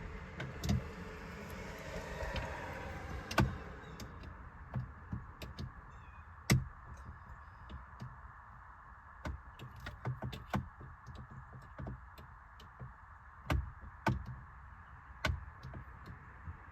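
Scattered light clicks and taps of a metal pick tool probing through an access port in the steering wheel to release the airbag's retaining tab, over a steady background hiss.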